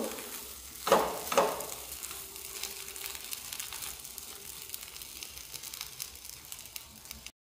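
Green-pea paste sizzling faintly in a nonstick pan as a silicone spatula stirs and scrapes it, with two louder scrapes about a second in. The filling is being cooked dry over low heat. The sound cuts off suddenly near the end.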